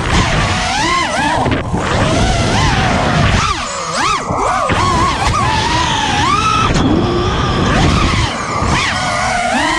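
FPV quadcopter's brushless motors and Dalprop 5147.5 propellers whining, the pitch sweeping up and down rapidly with throttle punches and chops, dipping briefly around four seconds in and again near the end.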